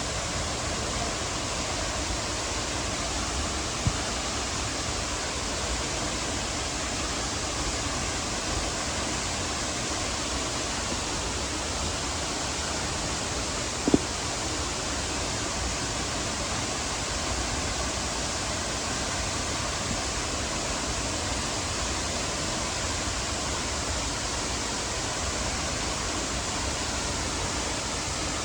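Mok Fa Waterfall's steady rush of falling water. Two short knocks cut through it, a small one about four seconds in and a sharper one about fourteen seconds in.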